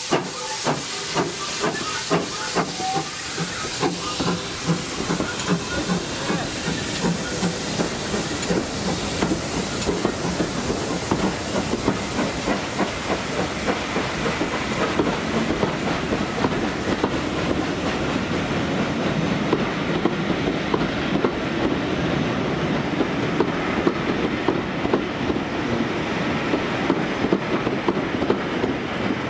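Ex-GWR 2-8-0 steam locomotive No. 2857 moving off under the bridge with regular exhaust chuffs and steam hiss, the beats fading over the first several seconds. Its train of coaches then rolls steadily past close by, wheels rumbling and clicking over the rail joints.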